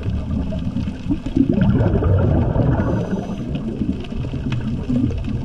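Underwater ambience: a steady, muffled low rumble of moving water, with scattered faint clicks.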